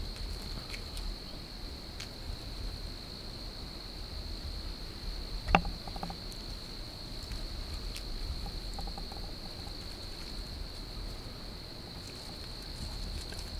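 Insects trilling steadily in one continuous high drone, with a single sharp click about five seconds in.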